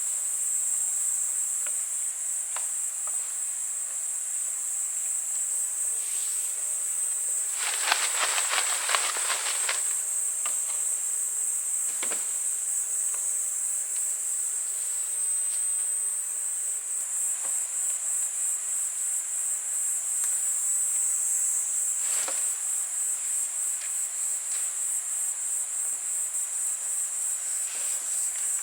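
Insects chirring in a steady high-pitched trill that pulses rapidly throughout. A short burst of noise lasting about two seconds comes about eight seconds in, and there are a few faint clicks.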